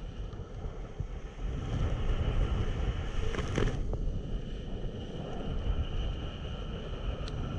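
Wind buffeting the on-board camera's microphone, with water rushing past the hulls of a Hobie Cat 16 catamaran sailing at about 11 mph. The rumble picks up about a second and a half in, and there is one short sharp hit about halfway through.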